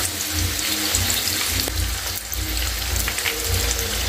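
Battered tempura shrimp deep-frying in a pan of oil, the oil sizzling with a steady stream of small crackles.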